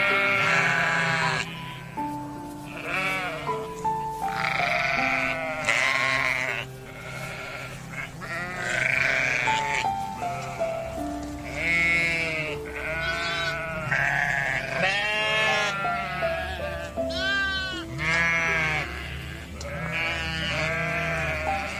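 Sheep bleating again and again, wavering calls that often overlap, over background music.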